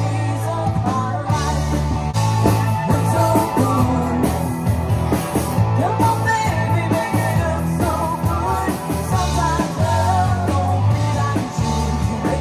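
Live rock band playing: a woman singing over electric guitars, a bass line and drums.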